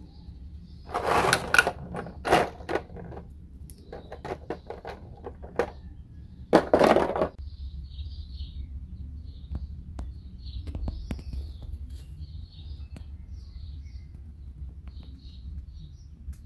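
Hard plastic action-figure parts and clear plastic blister trays being handled: a few short loud crinkling, clicking bursts in the first half, then only faint occasional clicks after about seven seconds.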